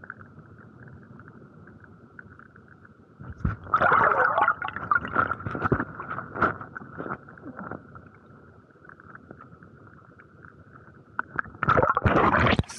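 Muffled underwater sound heard through an action camera's waterproof housing in shallow sea water, over a faint steady high hum. Loud crackling and knocks of water movement against the housing come in two spells: one starting about three and a half seconds in and lasting some four seconds, and a shorter one near the end.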